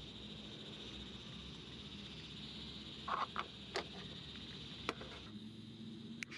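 Sharp clicks and taps of a small glass-chimney gas-canister lantern being handled and fitted together: a quick cluster about three seconds in, then single clicks about five and six seconds in. Under them runs a steady high-pitched chorus.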